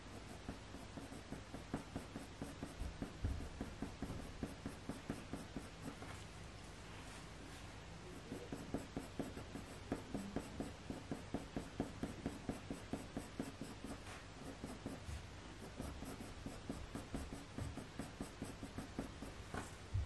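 A Faber-Castell Polychromos coloured pencil scratching lightly over hot-press watercolour paper in quick short strokes, about four a second, in runs with brief pauses, softly blending colour in to build up fur texture.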